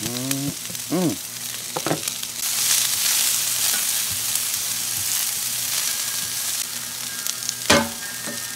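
Sliced onions and green bell peppers sizzling on a hot steel griddle plate, with metal tongs stirring and spreading them. A sharp click near the end.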